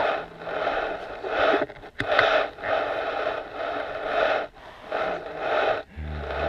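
Rapid breathy huffs, about two a second, like excited panting. A man's low voice starts near the end.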